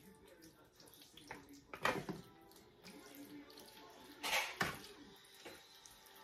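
Metal spoon stirring cheese sauce into cooked macaroni in a foil baking pan: wet, squelching stirs with a few scrapes and knocks against the foil, the loudest around two seconds in and again a little after four seconds.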